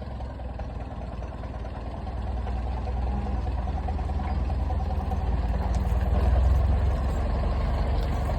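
Low engine rumble of a farm vehicle towing a combine harvester, growing louder over several seconds as it moves off.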